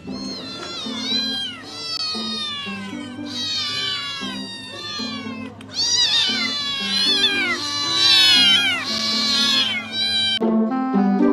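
Cat meowing over and over in high-pitched, falling meows that come in quick succession and overlap. The meows get louder about six seconds in and stop about a second before the end, over light background music.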